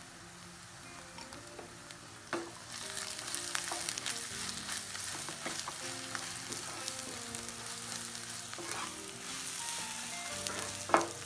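Onion, curry leaves, dried chillies and ground spices sizzling in oil in a nonstick kadai while a wooden spatula stirs and scrapes the masala. The sizzle grows louder about three seconds in as the stirring starts, with many small scrape clicks, and there is one sharp knock of the spatula near the end.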